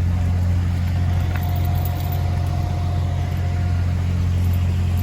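Heavy diesel engine of the recovery equipment running steadily at a constant speed. A faint thin whine sits over it through the middle.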